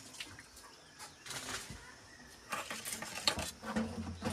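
Scraping and clinking of a kitchen blade and dishes as mangoes are cut and handled, in short bursts of a second or so, twice.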